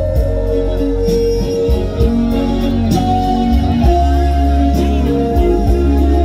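Live trot song played loud through PA speakers: a singer with full band backing, with guitar prominent.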